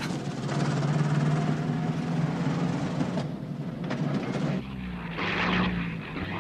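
Engine noise, then about four and a half seconds in the steady drone of a propeller aeroplane's engine comes in as the plane flies over.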